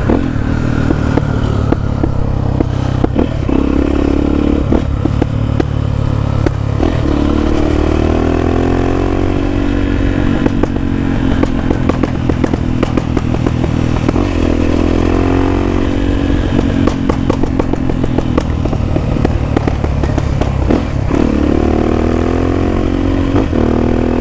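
Honda XR250 Tornado's single-cylinder four-stroke engine through a loud Belparts aftermarket exhaust, revving up and easing off several times while riding, with rapid pops and crackles from the exhaust each time it slows. The owner says the popping comes from tweaks he made, not from a too rich or too lean mixture.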